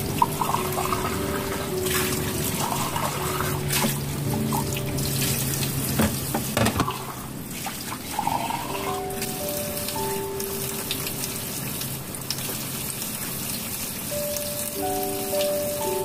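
Kitchen tap water running into a stainless steel sink while a glass and dishes are rinsed by hand, with a few sharp clinks of glass and crockery. Soft background music with held notes plays over it.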